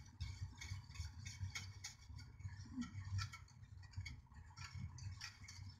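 Wire whisk stirring a milky black sesame pudding mixture in an aluminium saucepan, its wires ticking quickly and unevenly against the side and bottom of the pan.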